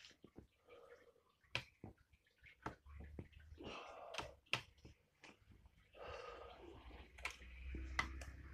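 Faint handling noise: scattered irregular clicks and two short spells of rustling.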